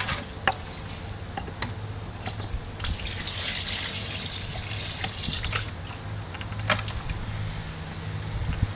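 Water poured from a plastic five-gallon bucket into a bucket of dry mortar mix, splashing for about three seconds in the middle, with knocks from the plastic buckets being handled before and after. Crickets chirp steadily in the background.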